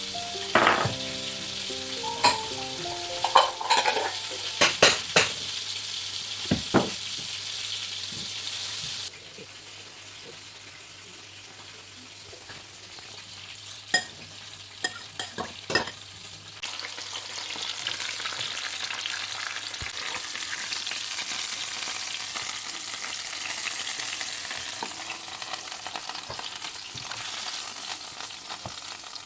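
Floured pork chops sizzling in oil in a frying pan, with a string of sharp clicks and knocks of kitchen utensils during the first seven seconds and again about fifteen seconds in. The sizzle drops abruptly about nine seconds in and comes back louder about seventeen seconds in.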